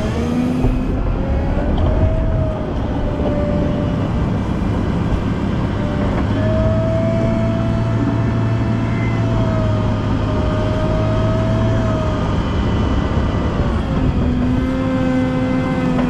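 Volvo L90F wheel loader's diesel engine running under work, its speed rising and falling, held up for several seconds in the middle before easing off.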